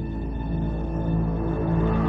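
Background music made of sustained, steady low tones.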